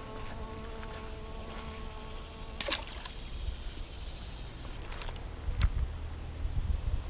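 Insects droning steadily at a high pitch, with a fly's hum fading out over the first couple of seconds and a few sharp clicks, the loudest a little past halfway.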